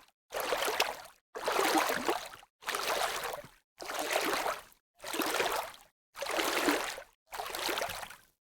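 Rushing, splashing water, heard as a run of about seven short snippets, each about a second long, cut apart by brief dead silences.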